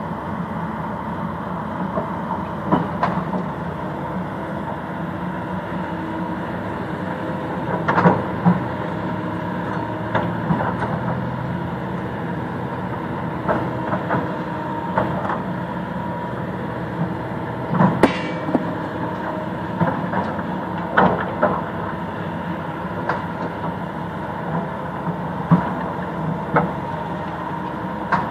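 Excavator's diesel engine running steadily under load, with irregular sharp knocks and clanks from its working gear, about a dozen in all, the sharpest about two-thirds of the way through.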